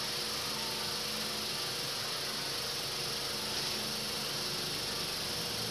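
Steady, even hiss with no distinct sounds standing out: the recording's background noise floor.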